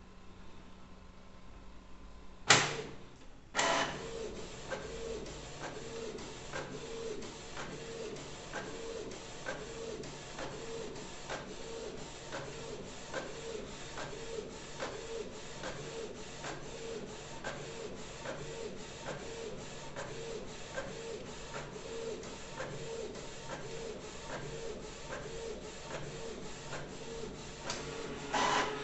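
Canon inkjet printer with refilled PG-47/CL-57 cartridges printing a colour page. Two clunks a few seconds in as the paper is drawn in, then the print-head carriage shuttles back and forth in a steady rhythm of about three passes every two seconds, with another clunk near the end.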